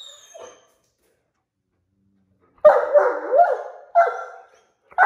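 Great Dane 'singing': a run of long, howling barks that rise and fall in pitch, starting about halfway in.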